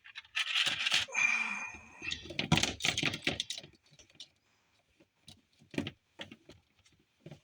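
Crimping tool and small plastic modular plug connectors being handled: a dense run of clicking and rustling for the first few seconds, then scattered single clicks.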